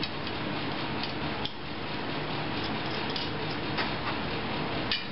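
Steady background hiss with a few light metallic clicks and taps as steel bolts are handled and fitted through an aluminum mounting plate into the base of an antenna rotor.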